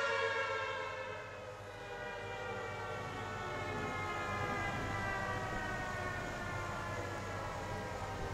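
Federal Signal Thunderbolt 1000T civil defense siren winding down at the end of its steady alert signal: its tone falls slowly in pitch. It drops in loudness about a second and a half in, then carries on lower and quieter.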